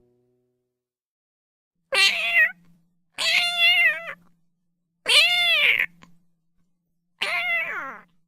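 Domestic cat meowing loudly for attention: four separate calls about a second apart, starting about two seconds in, each rising then falling in pitch, the last one sliding down.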